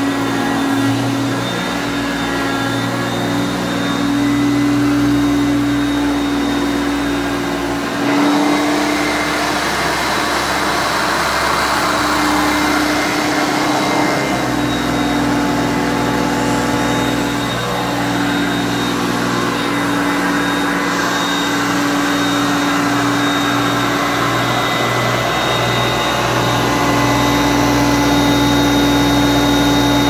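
A 1981 Hoover Concept One Power Drive upright vacuum cleaner (model U3103) running steadily with a motor hum and a high whine. Its sound shifts a few times as it is worked over carpet.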